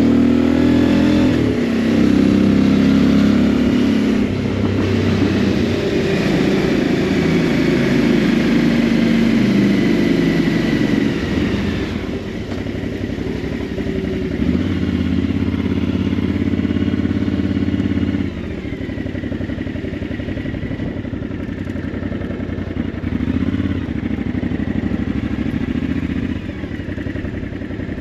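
Motorcycle engine running under way, its pitch rising and falling with the throttle for the first twelve seconds or so. It then eases off and settles to a lower, steadier run as the bike slows.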